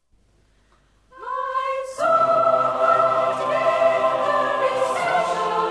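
Background music: a choir singing without accompaniment. A single held vocal line enters about a second in, and the full choir joins in a sustained chord about two seconds in.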